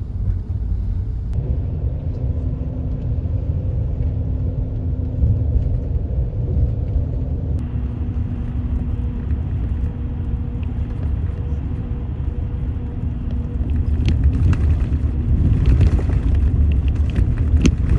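Steady low rumble of a moving vehicle heard from inside the cabin, with a faint steady hum through most of it. A run of sharp clicks and knocks comes over the last few seconds.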